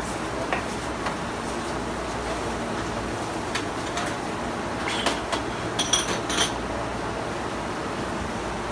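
Steady background hum and hiss of the shop, with scattered clicks and then a short cluster of knocks and clicks about five to six and a half seconds in as salmon pieces and a knife are handled on a plastic cutting board.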